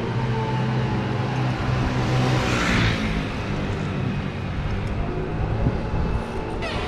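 City street traffic: a motor vehicle's engine runs close by as a low steady hum that weakens after about two and a half seconds. A hiss swells and passes around three seconds in.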